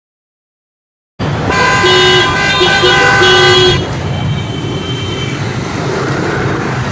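After about a second of silence, busy street traffic cuts in with several vehicle horns honking in short, overlapping blasts for a couple of seconds. Then steady traffic noise goes on, with a fainter horn for about a second.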